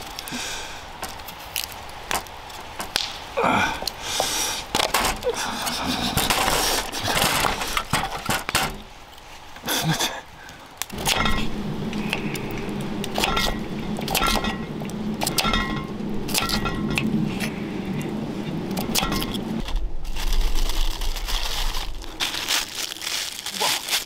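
Block of ice being cut and handled: repeated sharp knocks, clinks and scrapes. A steady lower scraping noise runs under them for about nine seconds in the middle.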